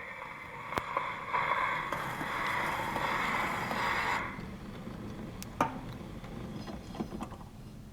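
Surface hiss and scratch of a gramophone's needle on a shellac 78 rpm record after the music has ended, cutting off suddenly about four seconds in. A few sharp clicks and light knocks follow as the machine is handled.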